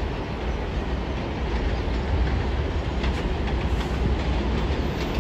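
New York City subway train of R142-family cars approaching on elevated steel track, a steady running rumble growing slightly louder. Sharp wheel clicks over the rail joints join in from about three seconds in.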